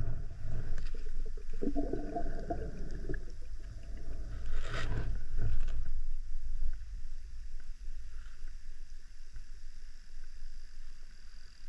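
Underwater water noise heard through an action-camera housing as a diver swims: a steady low rumble, a stretch of louder mixed noise about two to three seconds in, and a single sharp click a little before five seconds.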